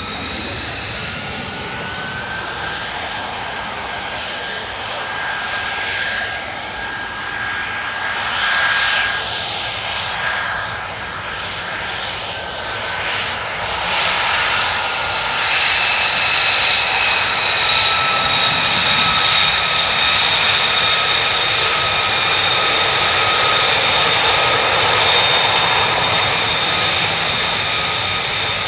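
F-35B Lightning II's single F135 turbofan running: a steady jet rush with several high whining tones. It grows louder about halfway through and stays loud.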